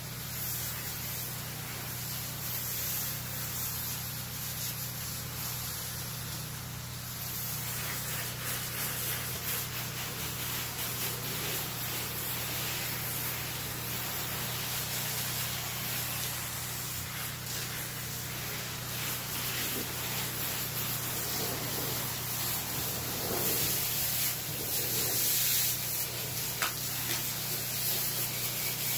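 Softwash spray wand hissing as it sprays a soap and detergent solution at low pressure onto painted lap siding, with a steady low hum underneath. The hiss runs on evenly and grows a little louder near the end.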